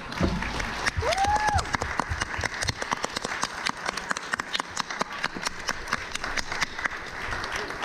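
Audience applauding, with one voice calling out briefly in a rising tone about a second in.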